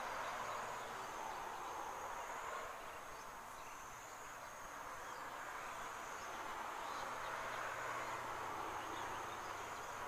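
Wetland ambience: an insect's thin, high trill over a steady background hiss.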